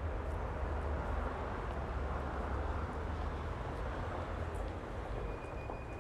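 Traffic on a busy high street: a steady wash of engines and tyres over a low rumble, swelling as vehicles pass in the first few seconds. A thin steady high whine sets in about five seconds in.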